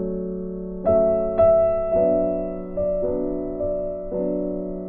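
Background piano music: slow, gentle notes struck about once a second, each fading away.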